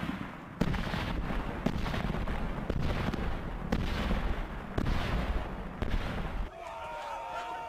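Explosive blasts from hay bales being blown apart: a heavy, continuous rumble broken by sharp cracks about once a second. Near the end the rumble stops abruptly and high, wavering calls take over.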